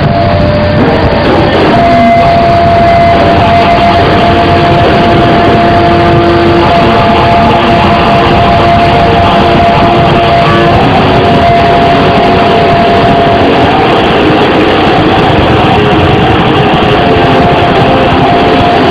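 Loud background music with long held notes over a dense, steady backing.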